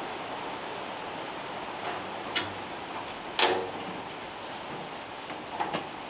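A few sharp metallic clicks and clinks as hand tools work on an old car's gas tank and its fittings, the loudest one with a short ring about three and a half seconds in, over a steady background hiss.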